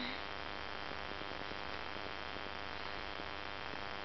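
Steady hiss with a low hum underneath and no distinct sounds: the recording's own background noise.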